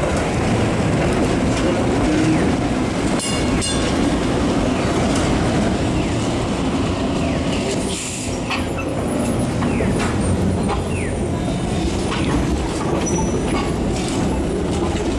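Toronto streetcar running on street track: a steady rumble of steel wheels on rail, with a brief clatter and a short high-pitched ring about three seconds in.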